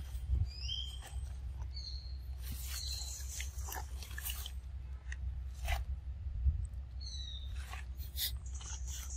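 A macaque eating a ripe mango: scattered wet chewing and smacking clicks. Several short, high, falling chirps sound over a low steady rumble.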